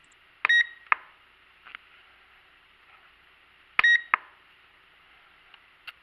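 Overmax X-Bee Drone 5.1 remote control beeping twice, about three seconds apart. Each short beep comes with a plastic button click and is followed by a second click as the speed button is pressed to switch between the two speed modes.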